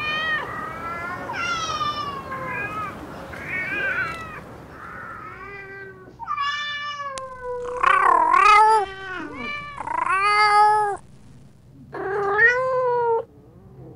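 Cats meowing: a run of short meows, then several longer, louder meows in the second half, each bending up and down in pitch.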